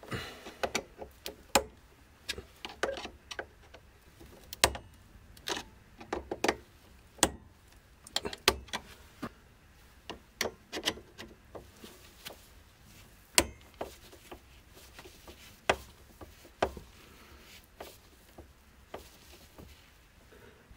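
Irregular sharp clicks and light metallic scrapes of an insulated flathead screwdriver seating in and turning the slotted terminal screws of circuit breakers, snugging the terminals tight by hand. The clicks come about every half second to second, some louder than others.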